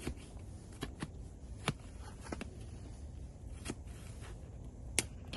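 A knife chopping an onion on a board: a series of irregular, sharp knocks about half a second to a second apart, the loudest near the end.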